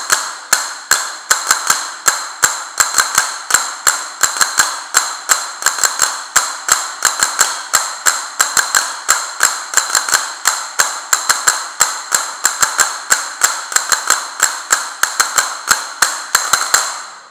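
Castanets (castañuelas) played by two seated players together: a steady run of sharp wooden clicks, several a second, in a repeating counted pattern as a finger warm-up exercise. The clicking stops just before the end.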